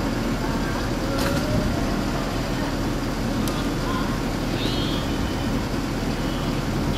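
Decorated electric flower trams rolling slowly along street rails: a steady low rumble with a few faint clicks.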